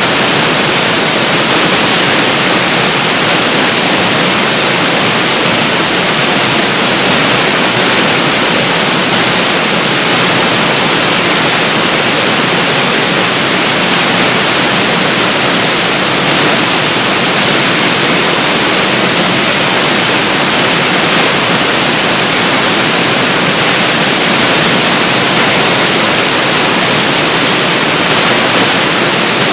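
Artificial waterfall: water pouring down a cliff face and splashing into the pool below, a loud, steady rushing roar.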